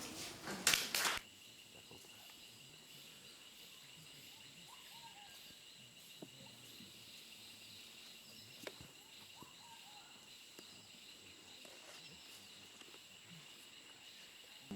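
Faint outdoor ambience of insects droning steadily on two high pitches, with a few soft bird chirps. There are a few sharp knocks in the first second.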